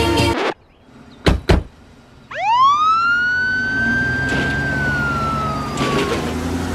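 A single siren wail: it rises quickly a couple of seconds in, holds, then slowly falls away, over a low steady background rumble. Before it, music cuts off early and two short knocks come about a second in.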